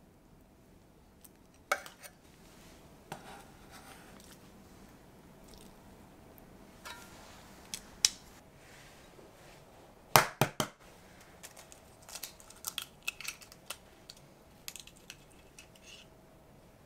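Food preparation sounds: bread soaked and turned in an enamel dish of egg mixture, with scattered clicks and knocks of utensils and dishes. The loudest is a quick run of three or four knocks about ten seconds in, followed by many small ticks.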